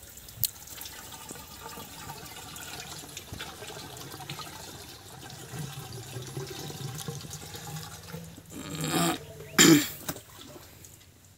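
Water poured from a bucket into the open suction pipe of a solar-powered irrigation pump, running in steadily to fill it: the pump is being primed before it is started. Near the end come two short, louder splashes.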